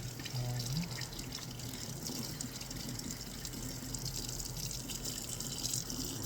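Faucet running steadily into a sink while a cat is rinsed under it during a bath.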